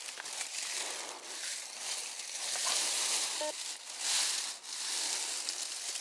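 Dry leaf litter crackling and rustling as a metal detector's search coil is swept through it, with one short detector beep about three and a half seconds in. The beep is a metal signal the detectorist ignores, taking such signals for junk like nails or shotgun pellets.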